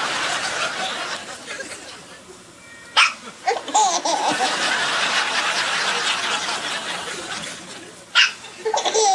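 A baby laughing in long bursts. A sharp hiccup from another baby comes about three seconds in and again near the end, and each one sets off fresh laughter.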